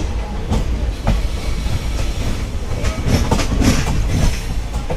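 Passenger train coach wheels running on the track: a steady rumble with irregular clacks over rail joints, the clacks coming thick and fast from about three seconds in.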